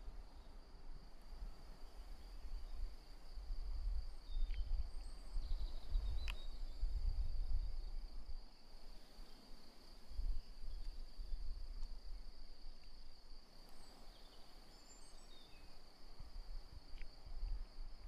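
Steady high-pitched insect song held without a break, over a gusty low rumble of wind on the microphone, with a few faint bird chirps and a single click about six seconds in.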